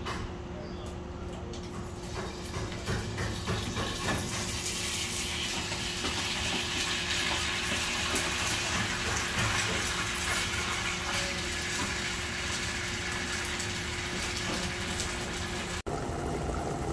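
Leftovers sizzling in a hot frying pan on a gas stove as they are spooned in from a container. The sizzle builds over the first few seconds and then holds steady, with a few light clicks of the spoon at the start, and it cuts off sharply near the end.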